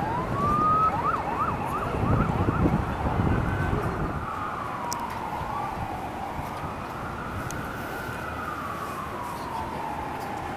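Emergency vehicle siren sounding in the city streets: it rises at the start, switches to a fast yelp for a second or two, then goes into a slow rising-and-falling wail. A low rumble lies under the first few seconds.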